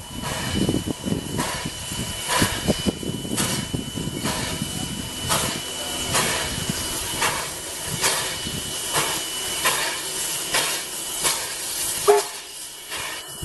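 Mason County Logging Co. #7, a 2-6-2T steam tank locomotive, working toward the listener: sharp exhaust chuffs about once a second over a steady hiss of steam. A brief, loud, sharp note sounds near the end.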